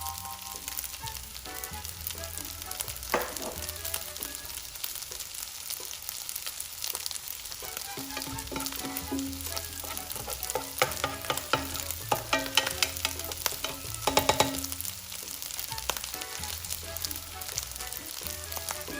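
Fried rice sizzling in a hot pan, with steady frying hiss, while a spatula stirs and scrapes it in bursts of clicks and scrapes around the middle.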